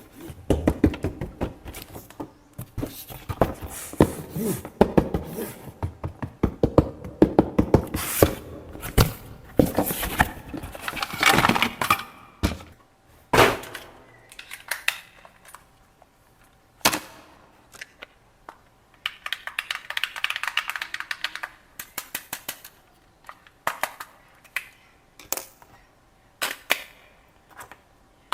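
Hands handling a toy and its packaging: irregular clicks and knocks, with two stretches of rustling.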